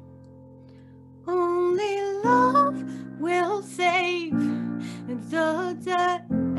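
A woman singing a slow ballad to her own piano accompaniment. A held chord fades for about a second, then her voice comes in, with a new chord struck about every two seconds beneath the melody.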